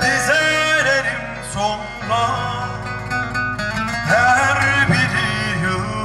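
Turkish folk music: a bağlama (saz) plucked and strummed over keyboard accompaniment, with a man singing long, ornamented phrases into a microphone.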